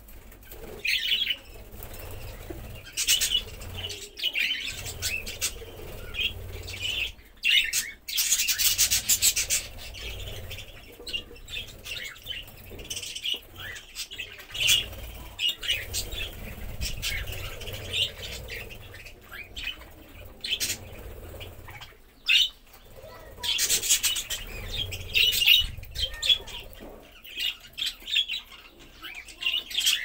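A flock of budgerigars chattering and chirping constantly, with several loud bursts of wing flapping.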